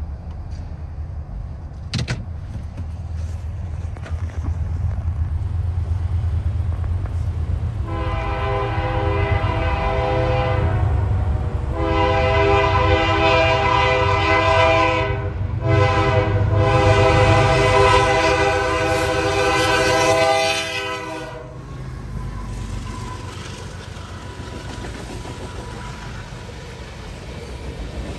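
BNSF freight train's diesel locomotive horn sounding the grade-crossing signal as it approaches: two long blasts, a short one, then a final long one, over the low rumble of the diesel engines. After the horn the locomotives pass, followed by the rumble and clickety-clack of freight cars rolling over the crossing.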